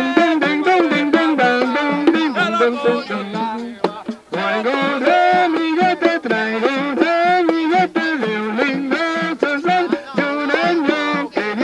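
Puerto Rican plena: a group of men singing in Spanish over a steady beat of hand-struck frame drums (panderetas), with a brief break about four seconds in.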